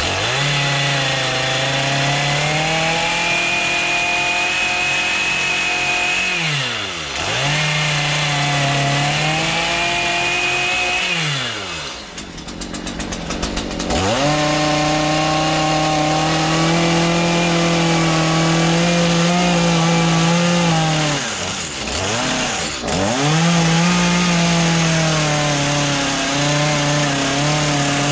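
Stihl two-stroke chainsaw cutting into wood at full throttle. The throttle is eased off three times and the engine drops toward idle, longest for a couple of seconds near the middle, before it revs back up.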